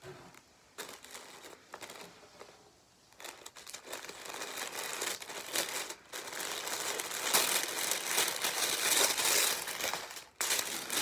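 Paper wrapping inside a gift box rustling and crinkling as it is folded back by hand, in scattered rustles at first and then louder and nearly continuous from about three seconds in.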